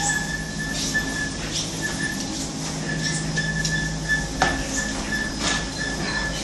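Ski-area travelator (magic-carpet conveyor belt) running: a steady low motor hum with a thin high whine that comes and goes, and light clicks about once a second.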